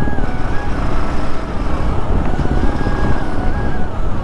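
Bajaj Pulsar 150's single-cylinder engine running at road speed, heard from the rider's camera with heavy wind rumble on the microphone. A faint stepping melody sits above it.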